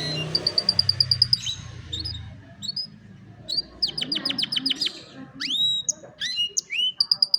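Domestic canary singing: a fast, even trill of about ten notes a second, then a quick run of downward-sweeping notes and several rising whistled notes, with another trill starting at the end.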